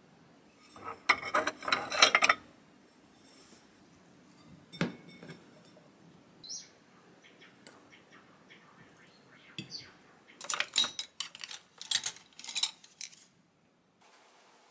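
Metal fork scraping and clinking against a glass container of mashed kabocha, a dense burst of clatter about a second in, then a single knock near five seconds. A run of light clinks of tableware comes near the end.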